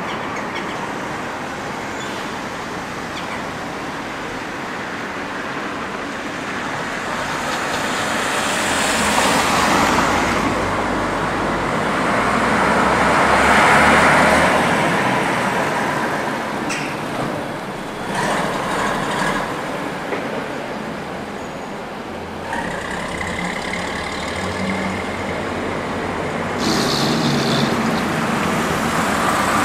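Vintage single-deck buses driving past, their engines swelling as each one approaches and fading as it goes. The loudest pass is about halfway through, and another bus comes up near the end.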